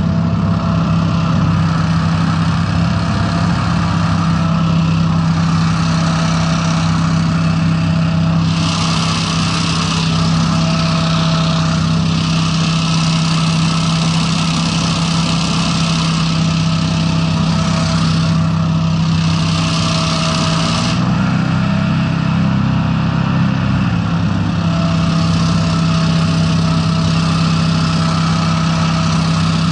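The Honda 690 V-twin engines of a Breeze 420 hovercraft running steadily, with a strong low drone. A higher hiss comes and goes for about twelve seconds in the middle, and the engine note wavers briefly after it stops.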